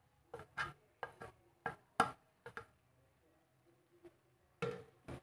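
A plate and a plastic spatula knocking and scraping against a nonstick wok as sautéed vegetables are tipped and stirred into rice: a string of short clicks and scrapes, a pause, then a louder cluster near the end.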